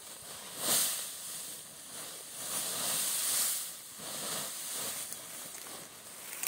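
Dry straw rustling and a woven plastic sack crinkling and flapping as a load of straw is tipped onto a haystack and the sack shaken out. A sharp rustle comes about a second in, a longer one around three seconds in, and a smaller one a second after that.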